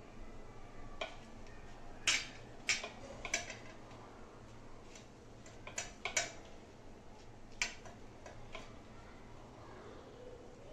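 Irregular sharp clicks and taps of hands handling food on a steel plate while pressing chicken pieces into a crumb coating, about eight in all, the loudest about two seconds in.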